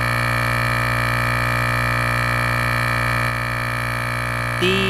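Ingco mini electric tyre compressor running steadily under load with a constant motor hum, pumping up a car tyre that is nearly at 35 PSI.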